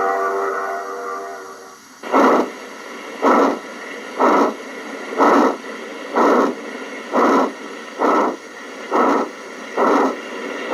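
HO scale model steam locomotive's sound decoder played through its small speaker: a held multi-note tone fades out, then slow steam chuffs begin about two seconds in, roughly one a second and gradually quickening as the locomotive pulls away.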